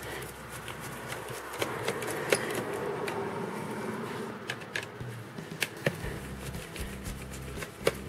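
Small screwdriver clicking and ticking against the battery screws and the metal and plastic of an opened laptop, in scattered light clicks over a soft rustle of handling.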